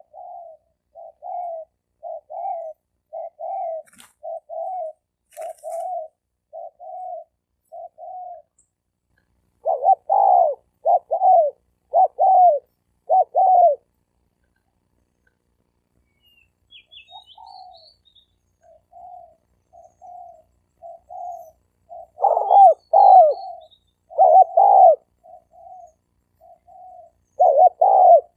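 Male spotted doves cooing back and forth in a territorial duel. Short, low coo notes come about one a second in phrases with pauses, some runs louder than others, and a few faint high chirps sound in the middle.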